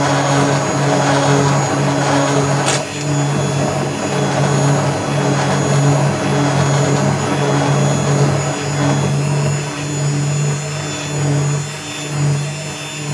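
Electric stick blender running submerged in thick soap batter, a steady motor hum that wavers slightly as the blender is worked around the bowl.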